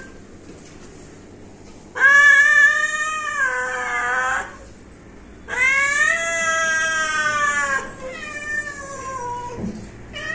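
Domestic cats meowing: three long, drawn-out meows of about two seconds each, the last one fainter.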